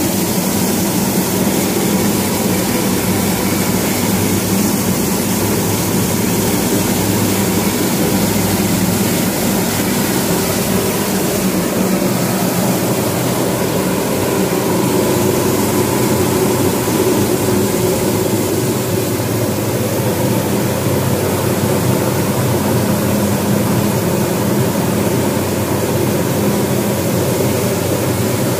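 Impulse turbine test rig running: the nozzle's water jet drives the spinning runner inside its casing, fed by a centrifugal pump. A loud, steady rush of water over a steady mechanical hum.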